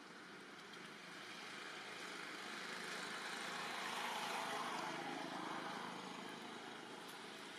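A road vehicle passing by: a rush of noise that swells to its loudest about four seconds in and then fades away.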